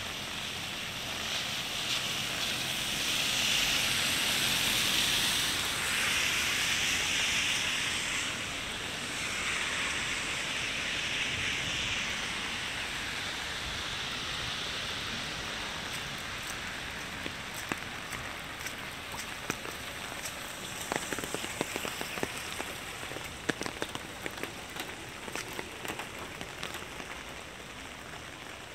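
Steady rain falling on wet pavement, a constant hiss that swells louder for several seconds early on. In the second half, sharp scattered ticks of drops hitting close by stand out.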